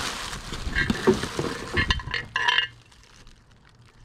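Bubble wrap crinkling and rustling as hands dig through wrapped ceramic figurines in a plastic tote, with a few sharp knocks and short ringing tones. It goes much quieter about three seconds in.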